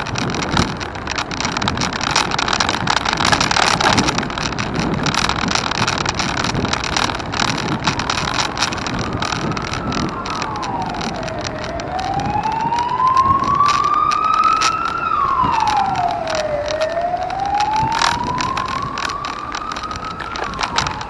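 Over a steady rushing noise, an emergency vehicle's siren starts about halfway through. It wails slowly, its pitch falling and rising with each sweep taking about five seconds.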